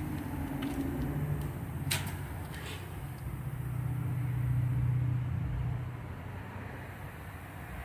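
Low rumble of a motor vehicle engine running, growing louder about halfway through and then fading, with a few light clicks.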